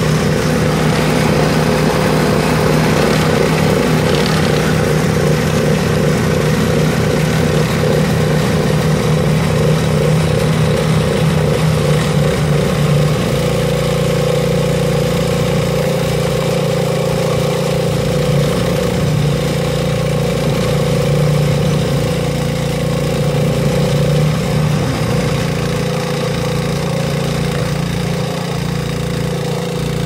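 Remote-controlled snowblower's small gasoline engine running steadily under load as the machine drives through hard, wet plowed snow. Its note shifts slightly higher and steadies about halfway through.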